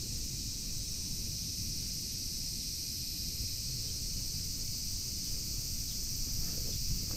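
Steady high-pitched drone of summer insects, with low wind rumble on the microphone. A few soft rustles come near the end.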